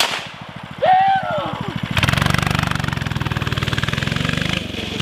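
Small single-cylinder petrol engine of a mini bike idling with a rapid chug, then opened up at about two seconds and running steadily under throttle as the bike pulls away, easing a little near the end. A brief shout comes about a second in.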